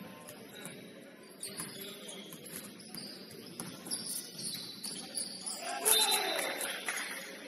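Basketball game on a gym court: sneakers squeaking on the floor amid scattered knocks and thuds, with faint voices, loudest about six seconds in.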